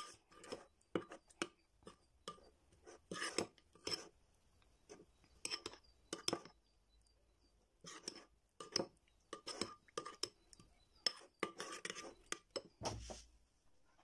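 Spoon clinking and scraping against a bowl in irregular strokes, stirring honey into a pounded ginger, garlic and chilli paste. A dull low thump near the end.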